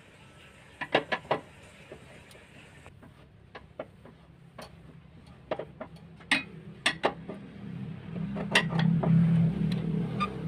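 Scattered metallic clicks and clinks of a 14 mm socket wrench on the engine-mount bolts as they are worked loose: a quick cluster of about four near the start, then single clicks every second or so. A low hum swells over the last couple of seconds.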